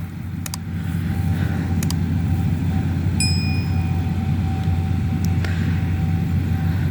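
Combine harvester running steadily at work: a low steady drone with a thin whine above it. A short high ding sounds about three seconds in.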